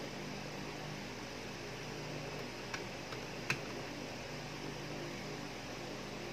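Three small sharp clicks a little before the middle, the last the loudest, from plastic parts of a spring-type airsoft Glock 18 being handled. A steady hum runs underneath.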